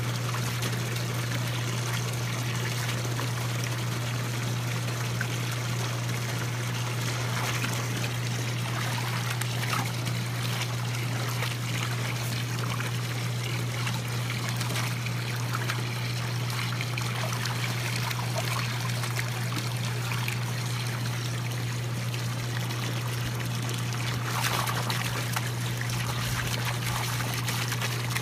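Garden hose stream pouring and splashing into a plastic wading pool of water, with a small puppy splashing about in it, a little stronger about three quarters of the way through. A steady low hum sits underneath.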